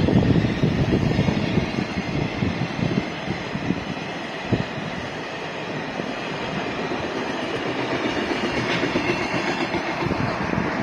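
Freight train wagons rolling past, wheels clattering over the rail joints. The clatter is densest in the first few seconds, with one sharp knock about four and a half seconds in, then it settles into a steadier rumble.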